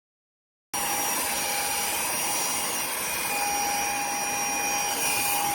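Cordless handheld vacuum cleaner's brushless motor running steadily with a constant whine, cutting in abruptly under a second in.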